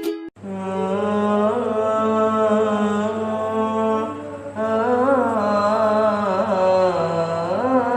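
A single voice chanting in long held notes with wavering melodic turns, pausing briefly about four seconds in; a few plucked-string notes end just as it begins.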